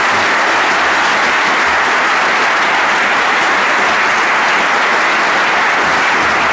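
Audience applauding, a steady and loud dense clapping of many hands.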